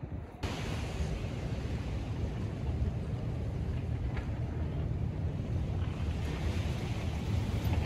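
Wind buffeting the microphone: a steady low rumble with a hiss of open-air noise. It starts abruptly about half a second in.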